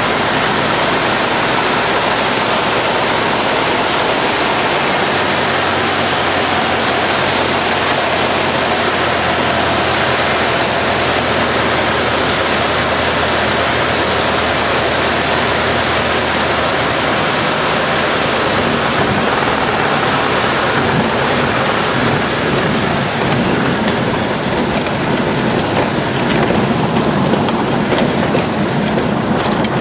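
Piper PA-22/20 light aircraft on its landing approach: a steady loud rush of engine, propeller and air noise. The low engine hum changes about two-thirds of the way through.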